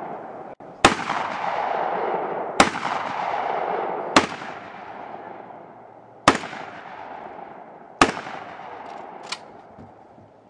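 Five loud single gunshots fired about one and a half to two seconds apart, each followed by a long echo, and a fainter sharp crack near the end.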